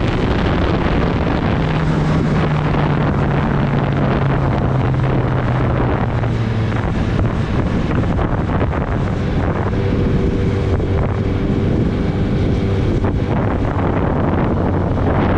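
Kawasaki Ninja ZX-10R's inline-four engine running at road speed under heavy wind noise on the microphone. The engine note falls over the first several seconds and then holds steady.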